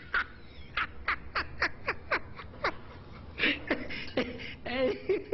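A man laughing hard in a run of short bursts that fall in pitch, about three or four a second, breaking off briefly a little past halfway before laughing on.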